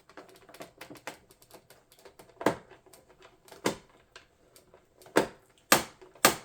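Rapid small clicks and ticks from a screwdriver and screws working against the plastic case of an all-in-one desktop computer being taken apart, with about five louder, sharper clicks in the second half.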